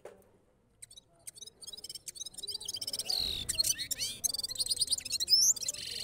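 Caged gulsar songbird singing: scattered chirps about a second in build into a fast, varied twittering song of high trills and sweeping notes, loudest in the second half.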